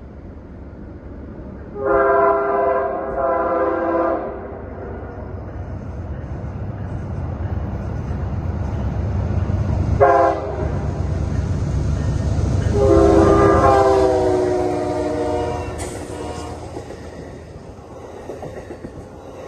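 Amtrak California Zephyr passenger train approaching and passing at trackside, the rumble of its diesel locomotives swelling as it nears. Their multi-note air horn sounds a long blast about two seconds in, a short one about ten seconds in and another long one about thirteen seconds in. Near the end the Superliner passenger cars roll by.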